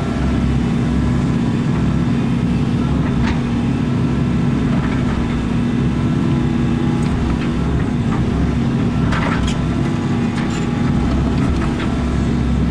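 Excavator diesel engine running steadily under load while the machine works at breaking up a thick concrete slab, with scattered sharp knocks and cracks of concrete and steel, several close together about nine to ten seconds in.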